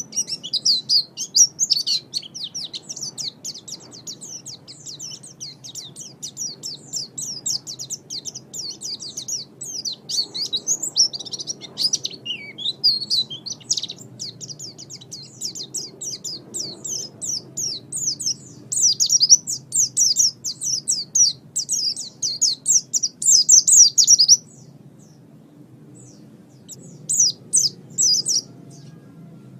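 A songbird singing a fast, continuous twittering song of quick high notes. It breaks off about 24 seconds in and resumes in short phrases near the end, over a faint low background hum.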